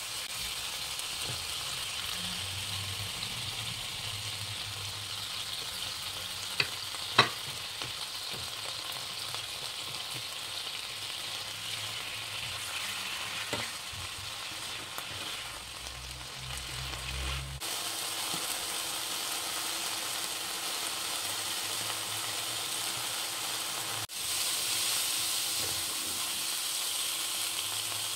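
Vegetables sizzling in a hot frying pan as water is added a little at a time, with a spatula stirring and scraping them around the pan. About seven seconds in, two sharp knocks stand out, the loudest sounds here.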